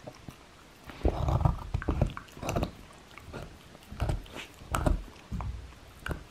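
Shiba Inu gnawing a wooden kamaboko board, her teeth crunching and scraping on the wood in irregular bursts from about a second in.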